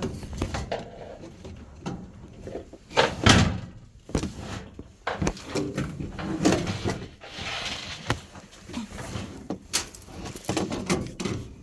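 Irregular knocks, clicks and clatter of hand tools and ratchet sockets being handled and rummaged through, with one loud knock about three seconds in.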